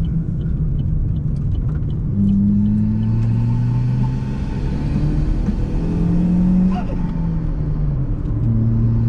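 Cruze's 1.4-litre turbocharged four-cylinder with an upsized Bad News Racing turbo, heard from inside the cabin while driving. The engine pulls and rises in pitch from about two seconds in, changes note a few times and drops back near the end, as with gear changes.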